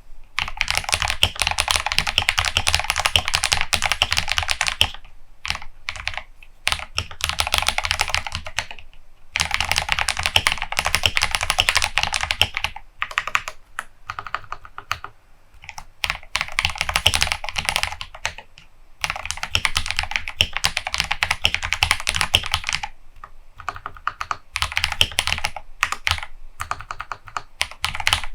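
Fast typing on a KBD67 Lite R2 custom mechanical keyboard with Holy Panda tactile switches and XDA-profile keycaps: rapid key clacks in runs of several seconds, with a few brief slower patches between them.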